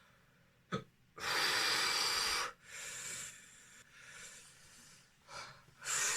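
A man breathing hard and gasping from the burn of a very hot pepper. There is a short click, then one long loud breath about a second in, several softer breaths, and another loud breath near the end.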